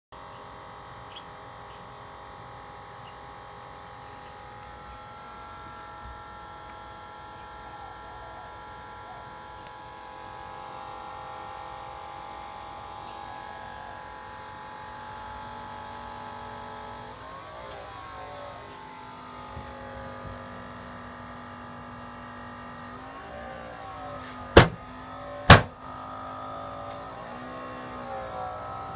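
Amcrest security-camera DVR's cooling fans running with a steady buzzing whine and a rattle/vibration from the unit, its pitch wavering in the second half. Near the end, two sharp knocks about a second apart as a hand hits the top of the DVR case, and the fan noise carries on unchanged.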